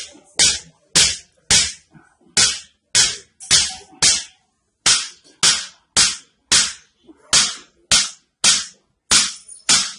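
A small hammer strikes again and again at a man's back, giving sharp cracks about two a second, with a couple of short pauses.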